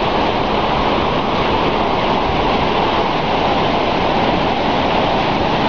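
Delaware River in flood: fast, high floodwater rushing, a steady, unbroken noise of water.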